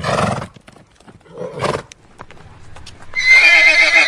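Horse neighing: two short breathy blows, then about three seconds in a loud whinny with a shaky, quavering pitch that falls away.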